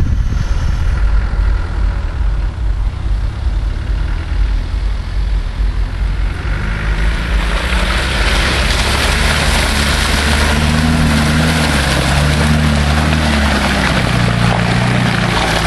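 Land Rover Discovery 4x4 engine labouring through a mud hole. It grows much louder about six seconds in as the truck reaches the camera, with the engine revs rising and falling and a dense hiss of tyres churning mud and water.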